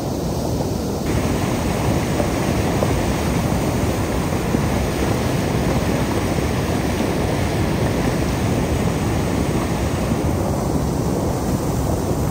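Steady rushing of a flash flood: fast, muddy floodwater carrying logs and debris down a desert river channel. A brighter hiss joins about a second in and fades near the end.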